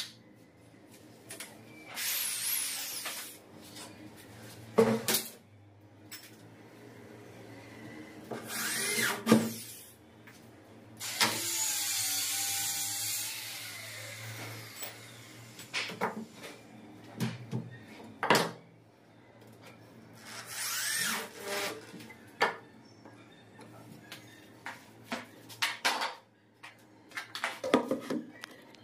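Small electric drill run in several short bursts of one to three seconds, the longest about eleven seconds in, while fixing an aluminium sliding-door bottom track. Knocks and clicks of handling between the bursts.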